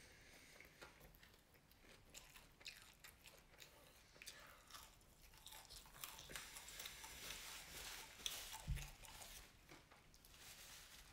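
Faint close-up chewing of fried catfish nuggets and fries, with many small mouth clicks. There is one brief low thump about nine seconds in.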